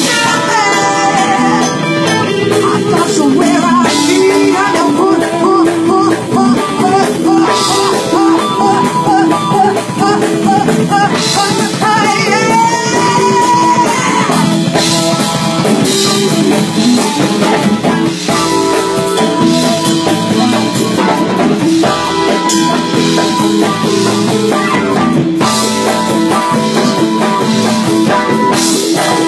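Live blues-rock band playing: drum kit, electric guitar, bass and keyboard, with a singer's voice over the top.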